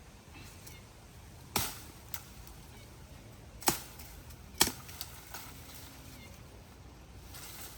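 A knife hacking through jungle brush to clear a path: three loud, sharp chopping strikes spaced a second or two apart, with a few fainter knocks between them.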